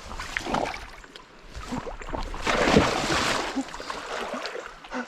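Water splashing and sloshing, loudest for about two seconds in the middle, among smaller scattered knocks and splashes.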